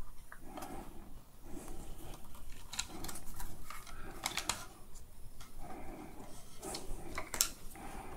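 Quiet handling of hard plastic vacuum-cleaner housing parts being fitted together by hand: soft rubbing with a few light clicks and taps.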